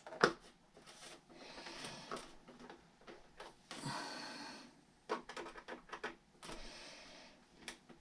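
Faint clicks and light scraping from small screws and a plastic cowl being handled and fitted onto the nose of a foam model plane, with a few soft rustles.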